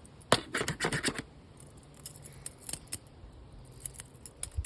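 Clicking and snipping of a hand cutting tool being worked against a plastic airsoft shotgun: a quick run of sharp clicks about a third of a second in, then scattered single ticks.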